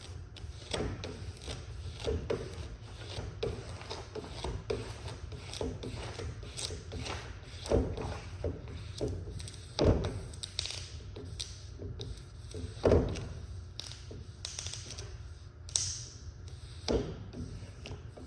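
Wood-grain vinyl wrap being handled and pressed onto a sound diffuser: irregular small clicks, crackles and rubbing, with louder knocks about eight, ten and thirteen seconds in.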